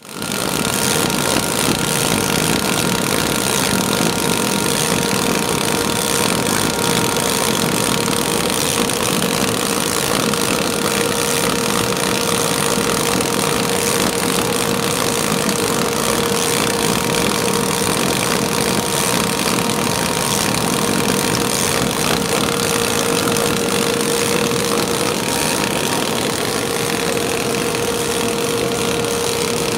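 Flexographic label printing press running: a steady mechanical whirring with a constant whine, the printed web feeding over its rollers.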